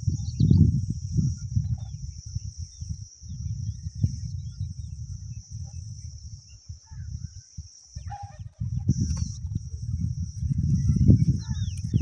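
Low rumbling wind noise on the microphone, dropping out briefly about two-thirds of the way through, over a steady high-pitched hiss, with a few faint distant bird calls.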